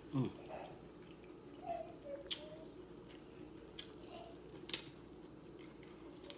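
Close mouth sounds of eating corn on the cob: a few sharp, wet clicks of biting and chewing. Near the start there is a short falling hum of a voice, and faint whines sound now and then in the background.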